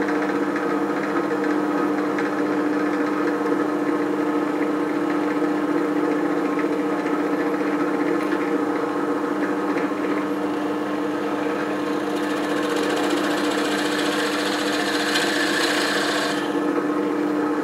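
SK11 SDP-300V benchtop drill press running: the motor hums steadily while a twist bit bores into a wooden board with a rasping cutting noise. A brighter hiss joins about twelve seconds in and cuts off suddenly near the end.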